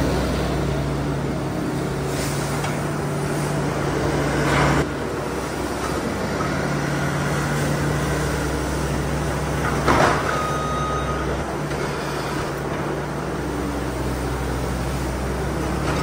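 Case SV340 skid steer's diesel engine running steadily under load as the grapple lifts and dumps bedding, with a brief sharp clank about ten seconds in.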